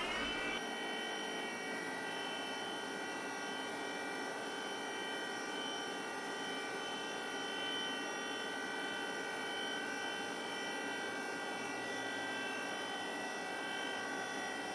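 CNC milling machine spindle running at speed with a steady high whine of several tones, levelling off about half a second in after spinning up, while a small end mill cuts the intake port in a Mazda Renesis rotary engine's cast-iron side housing.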